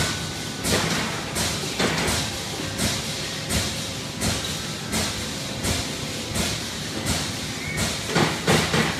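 22-ton Amada Vipros 255 CNC turret punch press running a program: sharp punching strokes a little more often than once a second over a steady machine hiss, the strokes coming quicker near the end.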